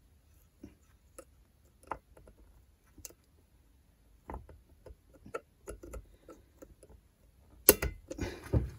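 Small metal clicks and taps as a washer and retaining clip are fitted by hand onto the clutch drum shaft of a Stihl MS170 chainsaw, with a louder cluster of sharp clicks near the end.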